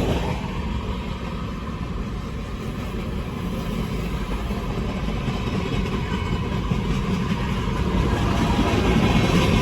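Norfolk Southern diesel locomotive engine running at idle: a steady low rumble that slowly grows louder toward the end.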